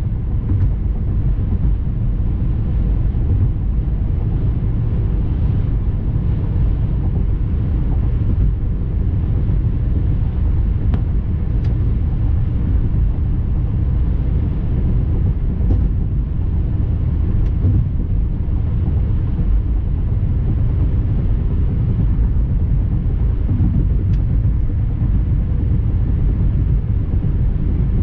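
Steady low road and engine rumble of a 2006 Toyota Matrix being driven, with a few faint clicks.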